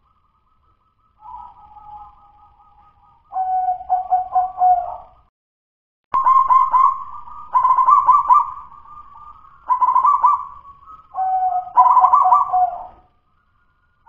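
Zebra dove (perkutut) cooing in its cage: a soft phrase about a second in and a louder one around three seconds, then after a short pause four loud phrases of quick rolling coos one after another. The keeper calls this song still 'dudut-nutut', a local bird whose song is not yet smooth and full ('belum los', not yet 'gacor').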